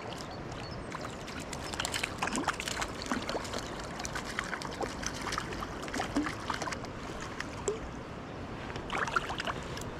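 Stream water running over stones, with many small gurgles and splashes.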